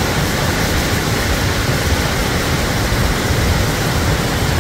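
Large waterfall plunging into a pool: a loud, steady rush of falling water.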